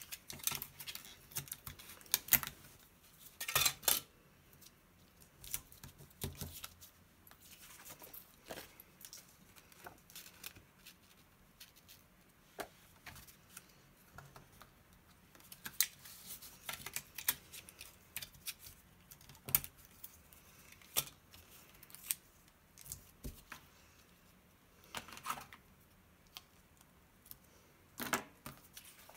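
Paper-crafting handling sounds: clear sticky tape pulled from a handheld dispenser and torn off in short rasps, with card stock being handled and scattered light clicks and taps on the desk.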